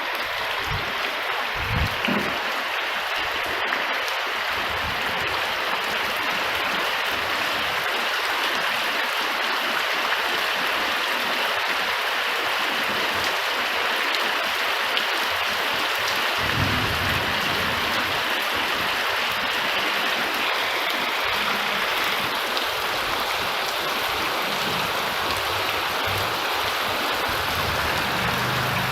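Steady rain falling, with a low rumble of thunder about two-thirds of the way through.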